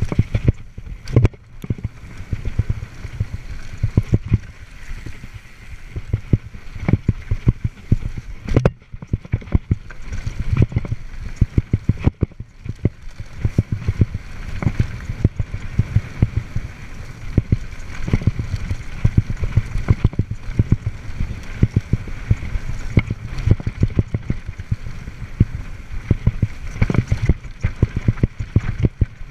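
Mountain bike riding fast down a rough dirt singletrack: a steady rumble of tyres and wind on the microphone with constant rattling knocks from the bike jolting over bumps. It dips briefly quieter a little before nine seconds in.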